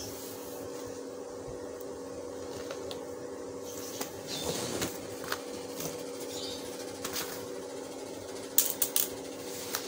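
Soft clicks and rustles of plastic laptop case parts being handled, with a few sharper clicks near the end, over a steady hum.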